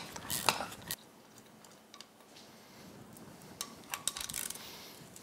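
Socket wrench working the 13 mm bolts on an outboard lower-unit housing: a few sharp metal clicks and clinks in the first second, then a run of small ratchet-like ticks around four seconds in.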